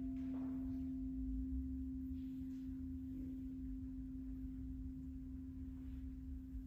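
Struck singing bowl ringing on with one steady low pure tone that fades only slowly. A faint higher overtone dies away about a second in.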